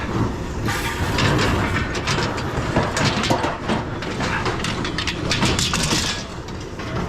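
Loose scrap metal, mostly sheet steel, rattling and clanking, with many short knocks throughout.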